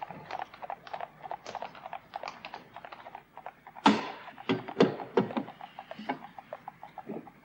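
Horse's hooves clip-clopping on cobblestones at about three to four steps a second, with a few loud wooden knocks from the carriage about four to five seconds in as its door and step are worked.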